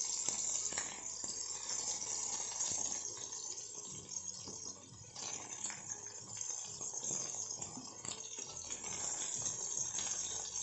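Okra sizzling in hot oil in a metal kadhai, a steady crackling hiss, with the metal spoon scraping and tapping against the pan as the pieces are lifted out.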